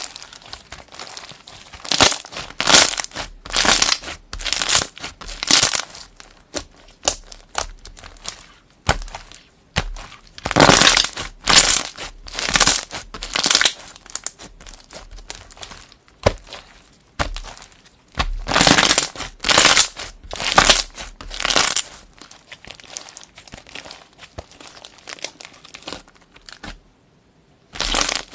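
Slime being squeezed and pressed by hand: three sets of about four loud squishes, roughly a second apart, with quieter handling between them.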